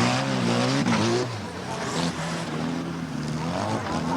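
Stock car engines running on the track, their pitch rising and falling as they rev and ease off.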